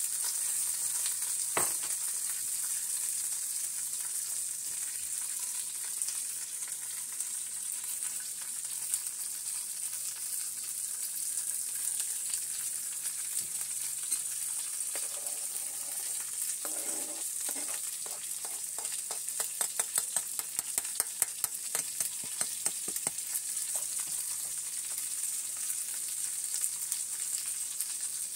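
A pot of oxtails with celery and green peppers sizzles steadily on the stove. About two-thirds of the way through, a quick run of sharp clicking scrapes comes as minced garlic is scraped off a plastic plate into the pot.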